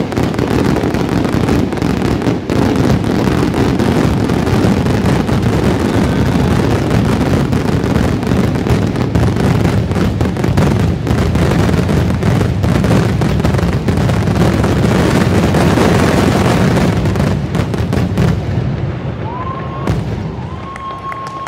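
Fireworks finale barrage: a dense, continuous run of booming shell bursts and crackling that fades out over the last few seconds as the display ends. Near the end a steady high whistle sounds.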